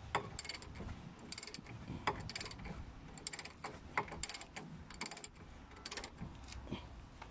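Ratchet wrench clicking on its back-strokes while working a 21 mm brake caliper bracket bolt, one short burst of rapid clicks about every second.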